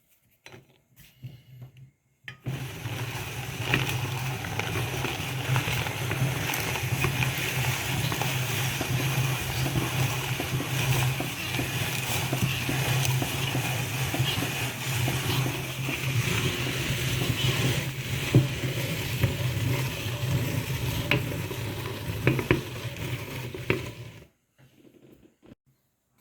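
Electric meat grinder switched on about two seconds in, its motor humming steadily while it crushes Golden Oreo cookies with a dense gritty crunch; it stops abruptly about two seconds before the end.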